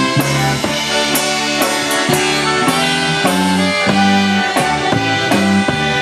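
Live dance band playing an instrumental passage of a Polish waltz: alto saxophone and trumpet carrying the melody over a drum kit with regular cymbal strokes and a keyboard bass line.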